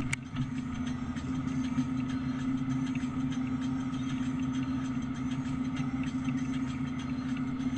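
John Deere tractor's diesel engine running at a steady speed, an even hum with no change in pace. A brief click comes right at the start.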